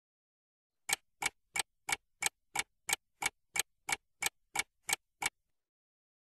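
Clock-style ticking sound effect for an on-screen countdown: fourteen sharp ticks, about three a second, stopping a second before the end.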